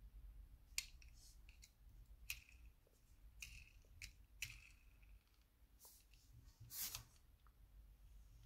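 Faint, scattered clicks and light ticks from a die-cast Hot Wheels toy car being handled: fingers flicking its wheels to spin them and turning the car over, then setting it down on a mat. The loudest click comes a little before the end.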